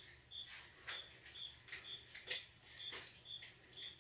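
Crickets chirping at night, a short high chirp about twice a second over a steady high insect trill. A few faint clicks sound in between.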